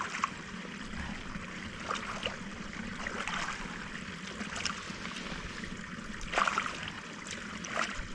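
Running water trickling through a small pool in boggy ground, with a few splashes as a muddy leg and bare foot are washed in it, the loudest about six and a half seconds in.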